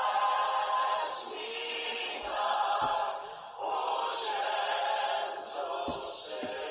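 Choral music: a choir singing slow, long held phrases.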